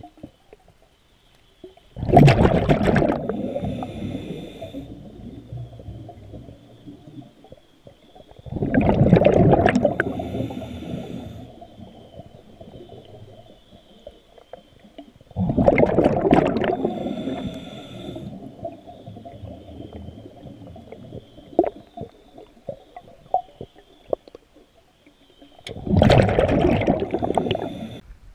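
Scuba diver's exhaled bubbles rushing out of the regulator, heard underwater: four breaths several seconds apart, each a loud bubbling gush that starts suddenly and fades away. A faint, steady high tone runs underneath.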